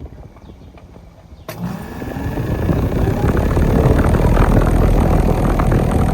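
Bryant Preferred central air conditioner condenser unit running: the fan and compressor noise comes in suddenly about a second and a half in, with a short rising whine, then holds steady and loud.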